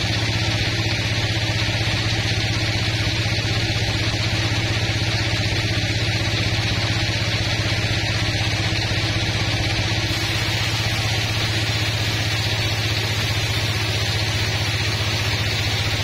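Large band sawmill running steadily with a low, even hum, its band blade sawing lengthwise through a log.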